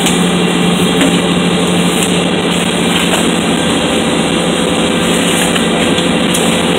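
Fishing trawler's engine running steadily: a loud, unchanging mechanical drone with a constant low hum.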